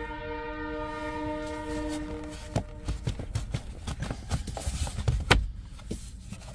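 Train horn sounding one long multi-tone blast of about two and a half seconds. It is followed by a run of plastic clicks and knocks as the instrument-cluster dash trim piece is pushed into place, the loudest knock about five seconds in.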